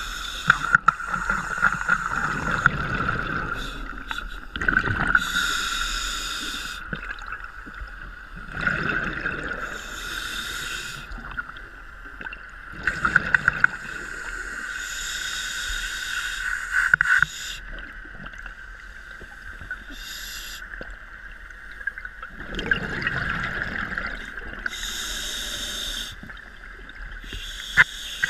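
Scuba regulator breathing underwater: hissing inhalations alternating with bubbling, gurgling exhalations, about one breath every four to five seconds, over a steady high whine and a few sharp clicks.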